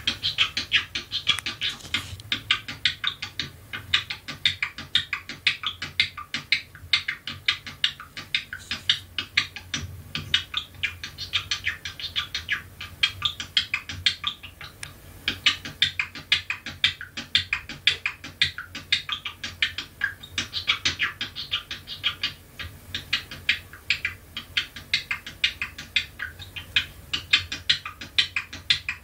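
Pet budgerigar chattering without a break: a dense run of rapid clicks, ticks and short chirps, many a second, that sounds like beatboxing, over a faint low hum.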